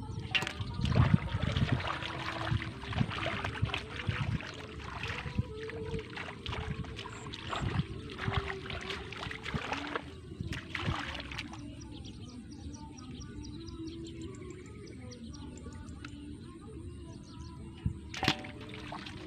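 Hands splashing and sloshing through shallow muddy field water while grabbing fish, irregular and busiest in the first ten or so seconds, then quieter. Near the end there is one sharp knock as a fish is dropped into a metal basin.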